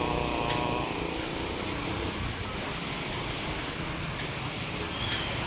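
Street traffic ambience: an engine hum fades out about a second in, leaving steady noise of passing traffic.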